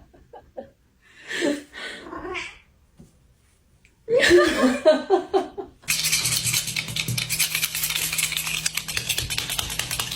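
A person laughing in two short bursts. From about six seconds in, a steady hissing noise with a low hum takes over.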